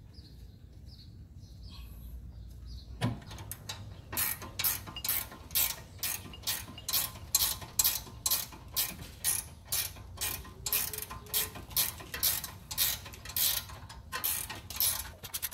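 Hand socket ratchet clicking in back-and-forth strokes, about two a second, as a bolt on the steering knuckle is run in, with a faster run of clicks near the end.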